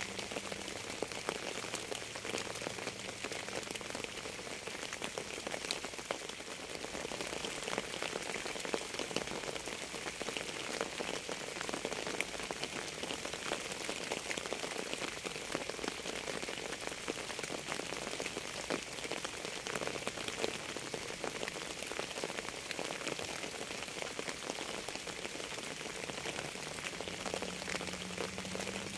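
Steady rain falling on a surface: an even, unbroken patter thick with the ticks of single drops.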